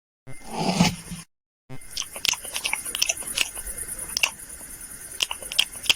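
Hand-made foley of eating: close-up crunchy chewing and biting, a run of sharp crunches and clicks. A short, lower sound comes first, then a brief gap before the crunching.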